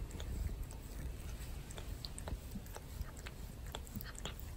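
Tabby cat grooming a person's hair: its rough tongue rasps through the hair in quick, irregular scratchy licks, over a steady low rumble.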